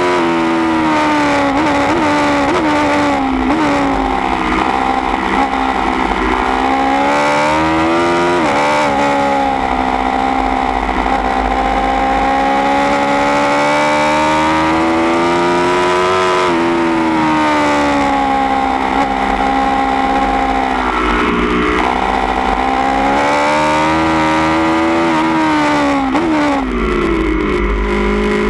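A 2016 Aprilia Tuono V4 1100 Factory's 1077 cc V4 engine, breathing through a baffled Austin Racing GP1R end can, pulling hard at track speed. Its note climbs and falls as the bike accelerates and slows for bends, with a quick rise in revs about 8 seconds in and another near the end.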